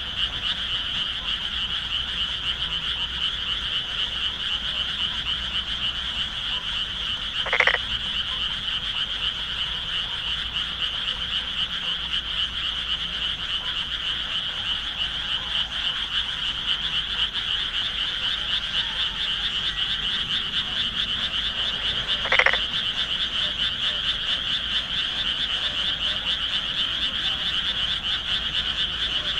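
Dense chorus of frogs calling from flooded rice paddies, a steady, unbroken din. Two louder single calls stand out, about 8 seconds and 22 seconds in.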